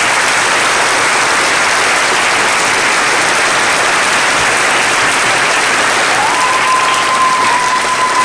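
Audience applauding steadily. Near the end a single thin high tone slides up and holds for about two seconds over the clapping.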